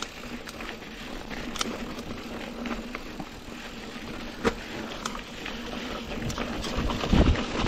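Mountain bike rolling along a dirt trail: steady tyre noise on the ground, with a few sharp knocks and rattles from the bike over bumps. A louder low rumble comes near the end.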